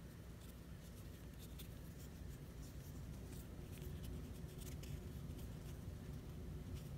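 Faint rubbing and light scattered clicks of a soft squishy grip being handled and worked onto a plastic diamond-painting drill pen, over a low steady room hum.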